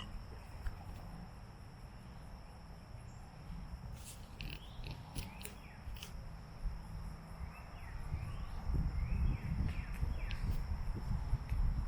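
Outdoor ambience: a steady high insect drone with a few short bird chirps, over a low rumble that grows louder in the second half. There are a few sharp clicks about four to six seconds in.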